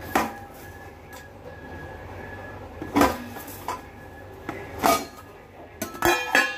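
Kitchen containers and utensils being handled: a few sharp clinks and knocks a couple of seconds apart, with a quick cluster of them near the end.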